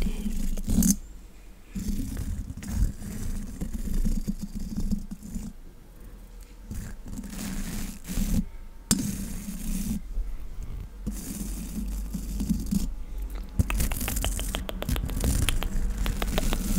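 Small lash-and-brow brush scratching against a condenser microphone's metal grille in intermittent close strokes, with a quick run of ticks near the end.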